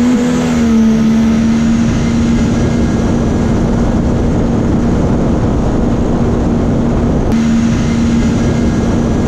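Supercharged Sea-Doo RXP-X jet ski engine running at steady high revs, one held pitch over a rushing noise, with a short break about seven seconds in.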